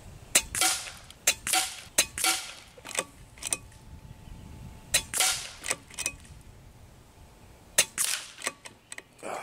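Kalibrgun Cricket 2 Tactical .22 PCP bullpup air rifle fired about five times, about one to two seconds apart. Each shot is a sharp crack with a short hiss after it, and there are lighter clicks between the shots.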